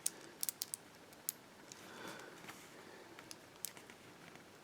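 Number wheels of an aluminium Abus combination padlock being turned by hand, giving faint scattered clicks while each wheel is felt for its loose spot to decode the combination.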